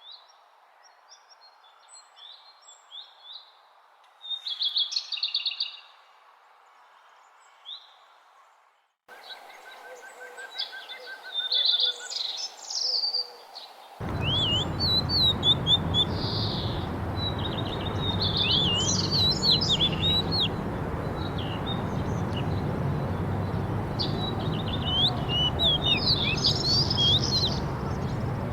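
Several songbirds chirping and singing in quick short calls and whistled glides. About halfway in, the background changes abruptly and a steady rushing noise runs under the birdsong.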